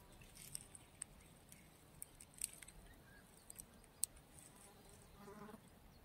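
Near silence: quiet outdoor ambience with faint scattered clicks and a short distant call about five seconds in.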